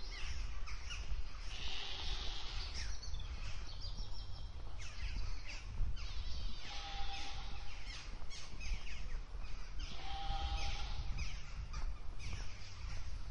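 Birds chirping repeatedly in short, quick calls over a steady low rumble of outdoor background noise, with a couple of brief held calls about halfway through and later.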